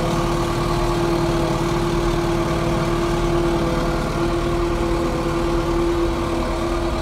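Cummins diesel engine of a Case windrower running steadily, heard from inside the cab while the machine drives, with a strong steady whine over the engine drone. The engine is running on its freshly rebuilt and refitted VE injection pump.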